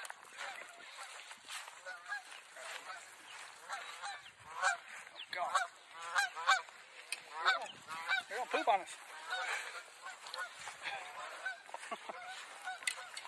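A small flock of geese honking in flight overhead, many calls overlapping, busiest and loudest from about four to nine seconds in.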